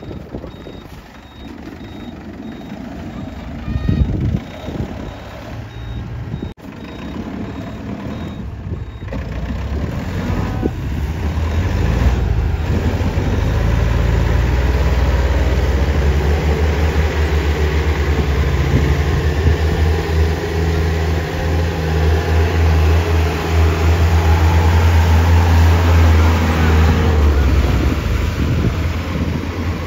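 Open jeep's engine revving hard under load, building from about ten seconds in and held high for some fifteen seconds as the jeep churns through deep mud with its wheels spinning, then easing off near the end.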